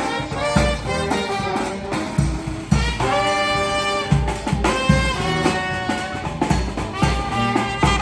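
Brass band playing an instrumental jazz tune: trombones and a sousaphone holding long notes over the regular strokes of a bass drum.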